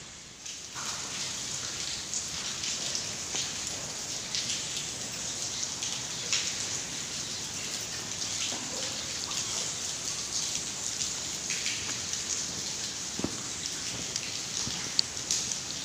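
A large colony of cave bats chittering: a dense, steady crackle of high squeaks and clicks, with a few sharper clicks standing out.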